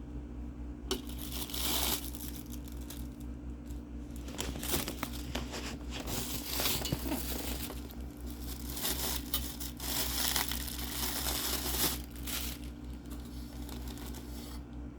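Plastic packaging being handled, crinkling and rustling in several bursts: briefly about a second in, then at length from about four seconds in to about twelve seconds in, with a short lull around eight seconds.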